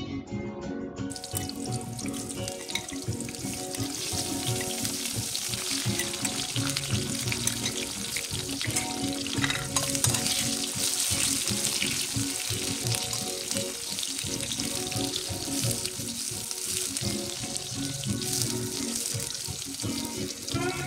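Salted eggplant strips sizzling as they fry in oil in a steel kadai, a steady hiss that starts about a second in.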